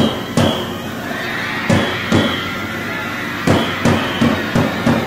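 Large Japanese baseball cheering drum (ouen-daiko) beaten with a stick: two pairs of strikes, then a quicker run of five near the end. Short high tones come after some of the early strikes.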